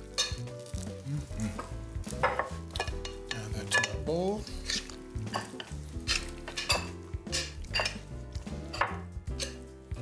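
Metal tongs clicking and scraping against a glass mixing bowl as macaroni in cheese sauce is tossed and then scraped out into a serving bowl, with irregular clinks and a wet stirring sound.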